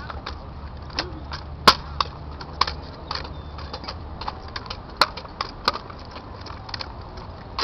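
Drill rifles being spun and caught in an armed drill routine: hands slapping the rifle stocks give an irregular run of sharp clacks, several a second, with a few louder cracks.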